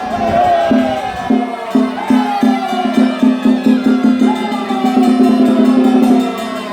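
Traditional Chinese music: a melody of long falling glides over a low note repeated about four times a second, with light wood-block-like percussion.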